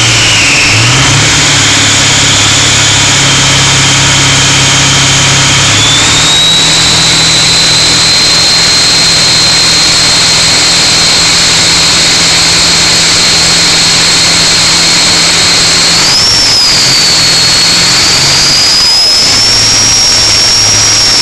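7.3 L Power Stroke turbo-diesel's BD Thruster II turbocharger giving a loud, high whistle over the running engine. The whistle steps up in pitch about six seconds in, climbs higher again in the last few seconds, then starts to drop away at the very end.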